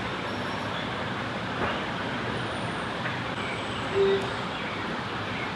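Steady background noise of road traffic, with a short single tone about four seconds in.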